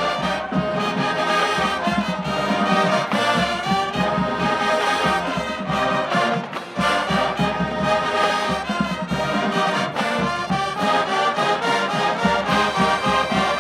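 Marching band playing, with the brass to the fore over a steady beat; the music dips briefly just past the middle.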